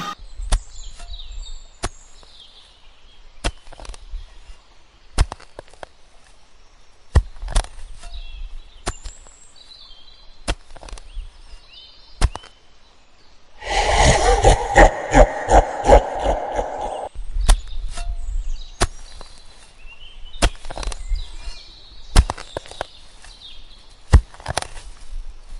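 Sharp knocks, like strikes of a tool, one every second or two. Near the middle there is a louder stretch of about three seconds with quick repeated strikes.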